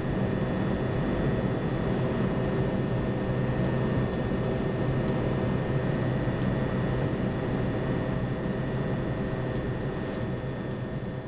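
Steady cockpit noise of a Boeing 737-200 in the climb: a rush of airflow over the flight deck mixed with the drone of its Pratt & Whitney JT8D turbofans and a few constant hums. It eases off slightly near the end.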